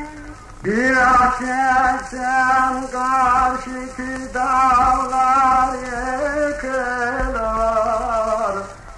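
A man sings an old Turkish folk song (türkü) of Elazığ in two long, held, ornamented phrases, the first starting about half a second in and the second around four seconds in. It is an early wax-disc field recording, with steady surface hiss under the voice.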